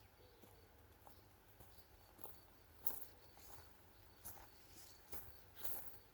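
Faint evening outdoor quiet with crickets chirping softly in short, regularly repeated high notes, and a few faint clicks, the loudest about three seconds in.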